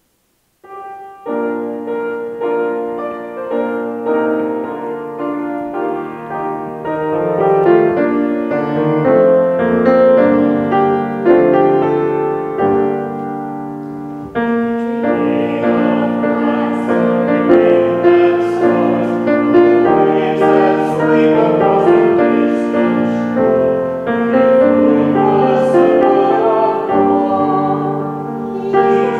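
Keyboard music starting about a second in: slow, held chords that change every few seconds.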